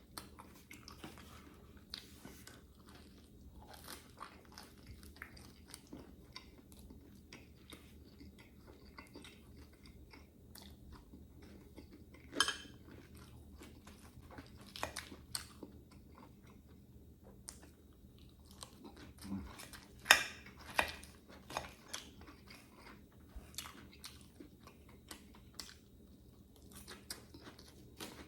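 A person chewing and biting food close to the microphone, with scattered crunches and small mouth clicks. There are two louder, sharper clicks, about twelve and twenty seconds in.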